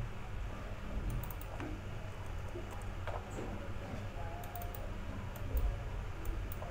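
Faint computer keyboard keystrokes and clicks, a few scattered taps at a time, over low steady background noise.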